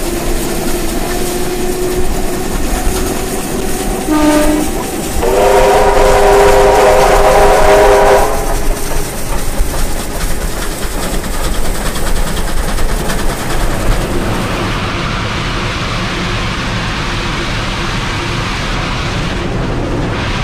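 Train whistle sounding a short blast about four seconds in, then a longer, louder chord of several tones lasting about three seconds. Underneath, trains are running on the track with a steady rumble and wheel clickety-clack.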